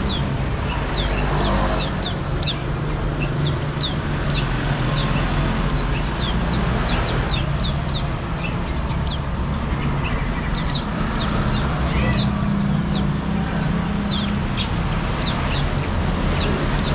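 Many small caged songbirds chirping nonstop, with short, high, down-sweeping chirps several times a second, over a steady low hum.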